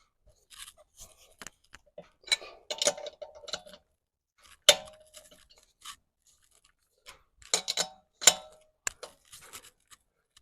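Lug nuts being tightened onto a car's spare wheel: irregular metal clicks and clinks with short scraping sounds, the sharpest clinks about halfway through and after about seven and a half seconds.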